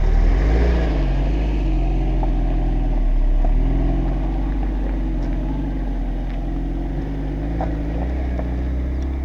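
Niva 4x4 driving with its engine running steadily, the engine pitch rising and falling a few times as the throttle changes, with a few light knocks over a low rumble.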